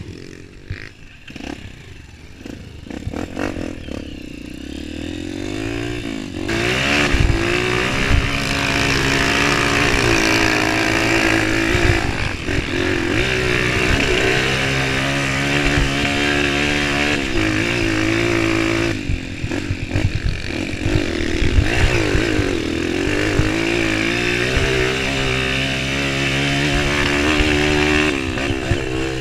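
Honda CRF230 dirt bike's single-cylinder four-stroke engine heard from on board, revving up and down through the gears on a dirt trail. It runs quieter at first, grows loud about six seconds in, and eases off briefly about two-thirds of the way through.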